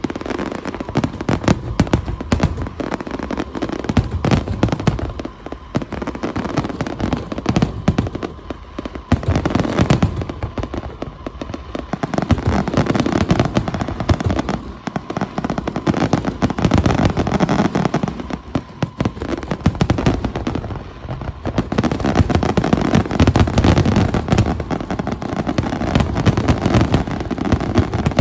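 Fireworks going off in a dense, continuous barrage of bangs and crackling, easing off briefly a few times before picking up again.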